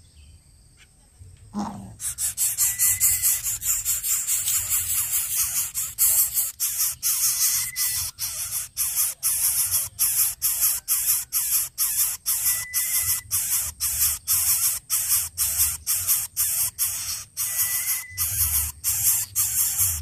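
A loud steady hiss starts about two seconds in, broken by brief drop-outs several times a second, with a faint short beep every few seconds.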